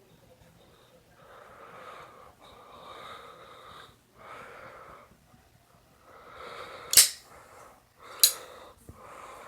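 Noisy breathing and sniffling through the nose, then two sharp clicks near the end, about a second apart, from a Zippo lighter's metal lid snapping.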